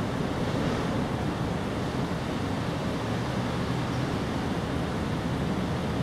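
Steady rushing background noise with no distinct events; no sound from the cats stands out.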